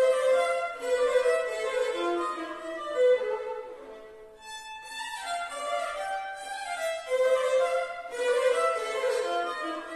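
Violin playing a melody, sometimes sounding two notes at once, with a softer passage about four seconds in.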